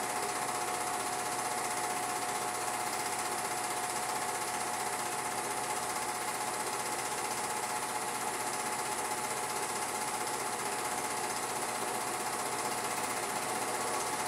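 Film projector running: a steady mechanical rattle and whir with a constant tone, unchanging throughout.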